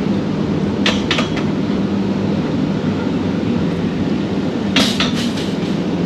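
Steady mechanical rumble and hum of a river rapids ride's boat conveyor carrying the round raft up the incline, with two sharp clacks about a second in and a quick run of clacks near the end as the raft knocks against the lift.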